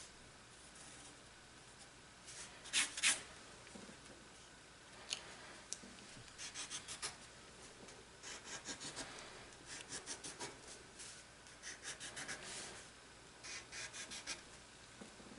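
Pencil scratching on sketchbook paper in short bursts of quick strokes, as small stars and lines are drawn. The sharpest strokes come about three seconds in.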